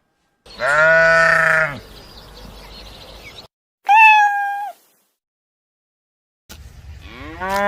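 Three bleats, each from a separate clip with hard cuts to silence between them. A low call comes about half a second in and lasts just over a second, a higher, shorter call comes around four seconds in, and another low call starts near the end.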